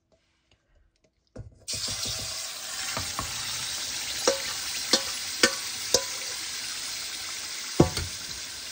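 Raw chicken livers dropped into hot annatto oil in a stainless steel pot start sizzling suddenly about a second and a half in, and the sizzle holds steady. A metal spoon clinks against the pot about six times as the livers are stirred.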